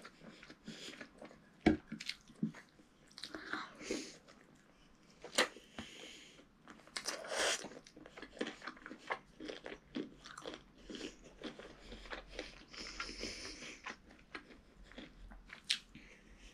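A child eating rice and chicken drumstick curry by hand, close to the microphone: irregular chewing with sharp clicks and crunches, and biting at a chicken drumstick near the end.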